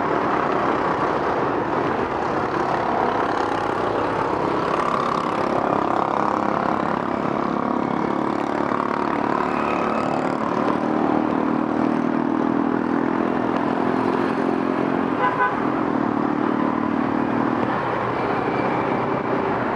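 Busy city road traffic of motorbikes and cars passing, with a vehicle engine or horn sounding a steady tone through the second half and brief horn toots.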